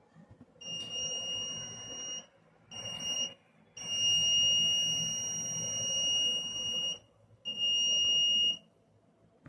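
Arduino buzzer sounding a steady high-pitched tone in four separate bursts, short then very short, then a long one of about three seconds, then a short one. It is the proximity alarm, triggered while the ultrasonic sensor detects an object within 40 cm.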